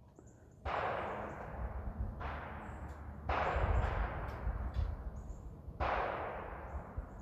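Four gunshots from elsewhere on the range, well quieter than a close rifle shot, each trailing off in a rolling echo over a second or so. They come about 0.7, 2.2, 3.3 and 5.8 seconds in.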